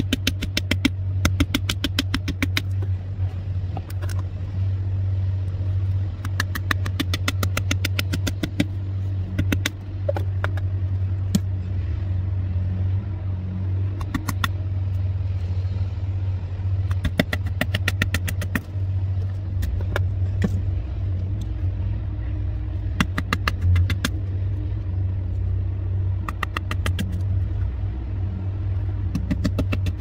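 A vehicle engine idling steadily underneath, with short bursts of rapid clicking scrapes every few seconds as a folding pocket knife's blade shaves and carves a wooden stick.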